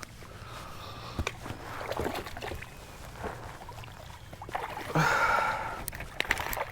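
Handling noises aboard a fishing kayak: a few sharp knocks and rustles, with a louder rush of noise about five seconds in.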